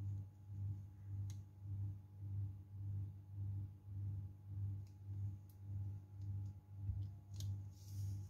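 A low humming tone that swells and fades evenly, a little under twice a second, with a few faint clicks.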